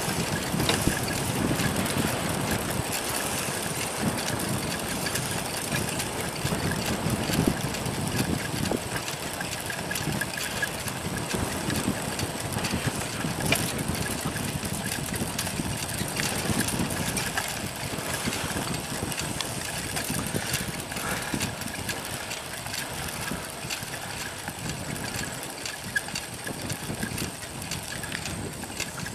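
Steady rushing wind and tyre noise of a bicycle riding along an asphalt path, with an uneven low rumble.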